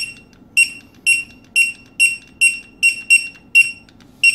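Zebra DS3678-ER cordless barcode scanner beeping on each successful barcode read: about ten short, identical high beeps in quick succession, roughly two a second.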